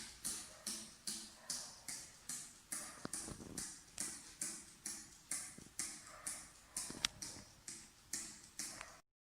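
Even, rhythmic ticking, about two and a half ticks a second, each tick sharp and quickly fading. It cuts off abruptly near the end.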